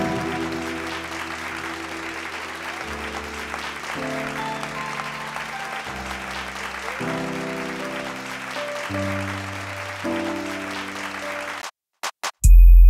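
Audience applause over soft background music of sustained chords that change every second or two. Both cut off suddenly near the end, and after a brief gap a loud, deep bass sound begins.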